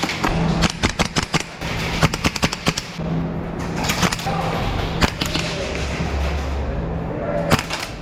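Airsoft gun firing in quick bursts of sharp shots: several bursts in the first three seconds, a few single shots in the middle, and another short burst near the end.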